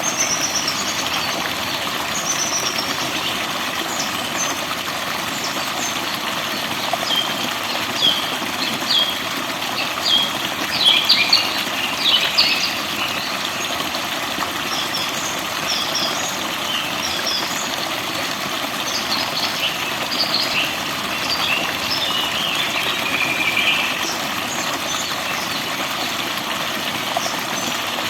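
Forest birds chirping and singing in quick short calls and trills, busiest about a third of the way in, over a steady rushing background noise.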